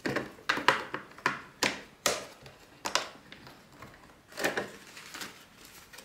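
Hands handling the plastic-framed motor-protection filter and open dust compartment of a Bosch Series 2 bagged vacuum cleaner: about ten sharp plastic clicks and taps at uneven intervals.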